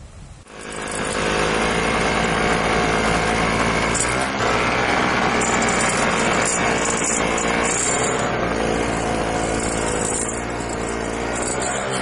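Small engine running steadily, starting about half a second in, with slight rises and dips in pitch.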